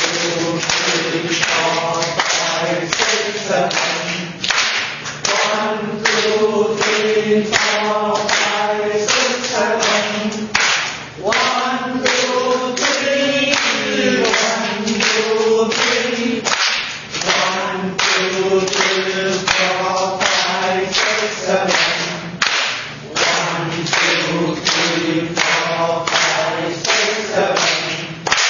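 Hands clapping in a steady rhythm, about two claps a second, in the four-beat clapping qigong exercise, with a group of voices singing along.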